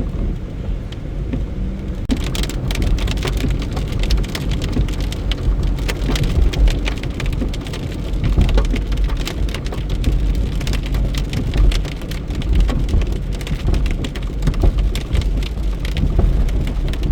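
Rain mixed with a little hail pelting a car's body and glass, a dense patter of sharp hits that thickens about two seconds in, over a steady low rumble from the moving car.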